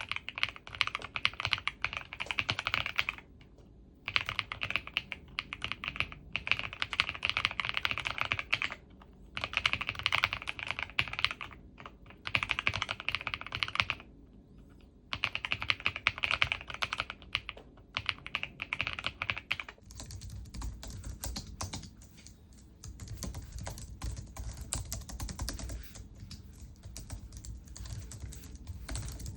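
Keyboard typing in bursts of a few seconds with short pauses, the keystrokes bright and clicky. About two-thirds of the way through it changes to a different keyboard with softer, duller keystrokes.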